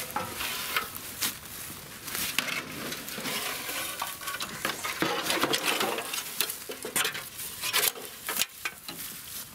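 Dry grass and small debris crackling and rustling close to the microphone, with many sharp irregular clicks and brief scrapes, as things are moved through it.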